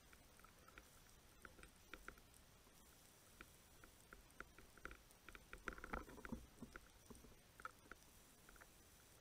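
Quiet underwater sound heard through the housing of a camera mounted on a speargun: scattered faint clicks and ticks, with a short cluster of louder crackles and knocks about six seconds in.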